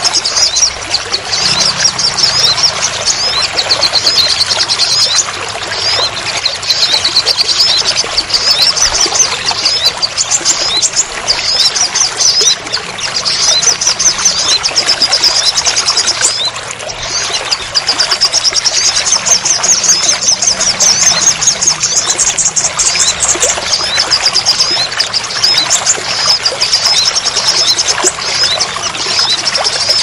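Heavy rain pouring and splashing, with a dense chorus of small birds chirping rapidly and shrilly over it. The chirping thins briefly about halfway through.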